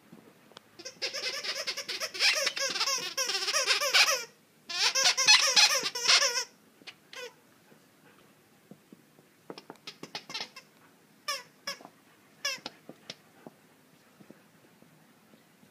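A dog chewing squeaky plush toys. The toys squeak rapidly in two long runs over the first few seconds, then give a handful of separate squeaks that slide in pitch.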